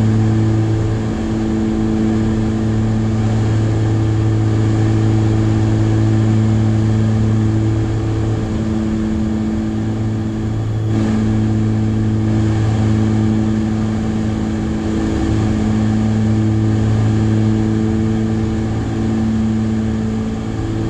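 Twin piston engines and propellers of a Piper Aerostar droning steadily in cruise flight, heard from inside the cabin: a constant low hum with a wash of air noise.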